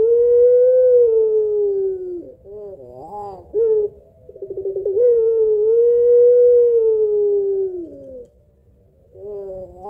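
Puter pelung (a domestic ring-necked dove) cooing. Twice, a stuttering start runs into a long drawn-out note of about three seconds that slides down in pitch at its end, each followed by a few short, broken notes.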